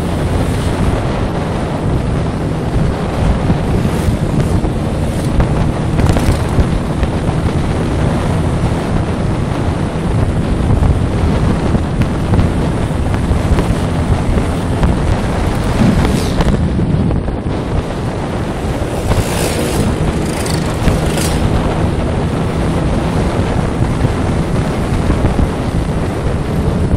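Wind buffeting the microphone of a camera riding on a moving Vespa scooter, over the scooter's engine running steadily.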